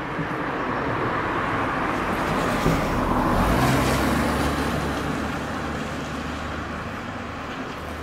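A road vehicle passing: a broad rushing noise of tyres and engine that swells to a peak about three to four seconds in and then fades, with a low engine hum as it goes by.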